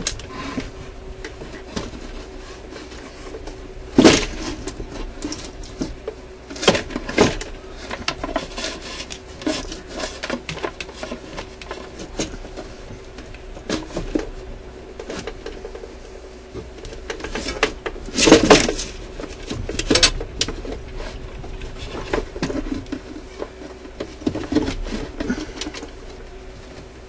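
Handling noise from a suitcase record player's turntable mechanism being set back into its case: scattered clicks, taps and knocks, with louder knocks about four seconds in and around eighteen seconds.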